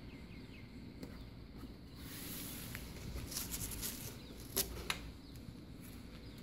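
Stiff paper-backed vinyl decal sheet and masking tape rustling as they are handled and pressed against the Jeep's body. Two sharp clicks come about four and a half seconds in.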